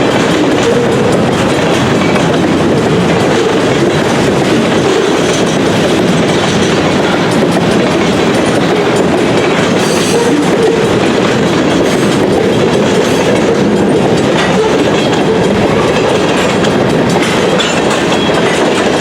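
CN freight train rolling past steadily, its wheels clicking over the rail joints.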